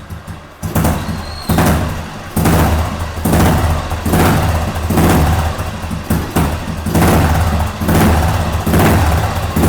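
A 2003 Royal Enfield Bullet's single-cylinder engine revved in repeated throttle blips, about one a second, each rising sharply and dropping back to idle, through a glass-wool-packed silencer.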